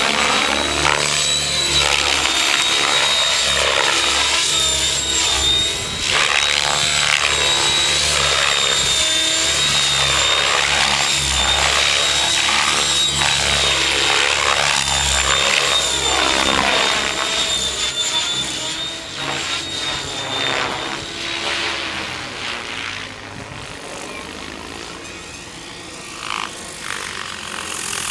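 Electric Mikado Logo 600 RC helicopter flying 3D on a 12S pack: a steady high-pitched motor and drivetrain whine over the chopping whoosh of the rotor blades, which sweeps up and down again and again as the helicopter passes and turns. Over the last third it grows quieter and the whine fades out as the helicopter comes down to hover low over the ground.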